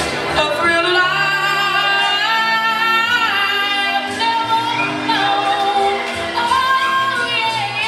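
A song playing over a PA loudspeaker, a singer holding long notes that glide from one pitch to the next over a steady accompaniment.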